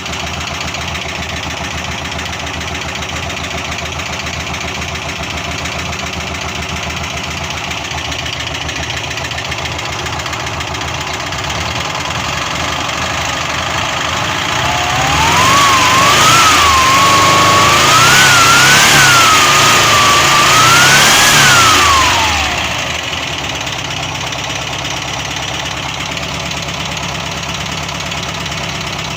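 LuAZ off-roader's air-cooled V4 engine idling with a knock that is described as strange. Around the middle it is revved several times in uneven blips for about eight seconds, then drops back to idle.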